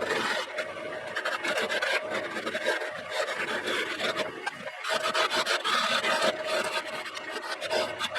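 Wood lathe running while a turning tool cuts into the spinning wooden blank: a continuous rasping scrape over a steady motor hum.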